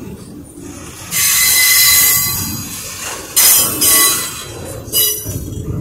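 Double-stack intermodal freight cars passing close by, their wheels rumbling on the rails. Three bursts of high-pitched wheel squeal come through: a long one about a second in, a shorter one near the middle, and a brief one near the end.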